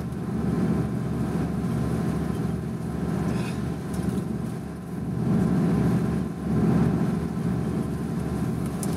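Steady engine rumble of an intercity coach bus, heard from inside the passenger cabin.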